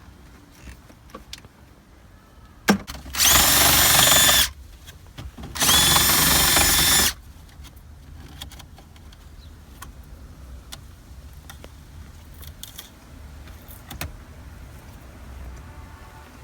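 Power drill run at speed in two bursts of about a second and a half each, with a steady whine, preceded by a sharp click. Light handling clicks follow.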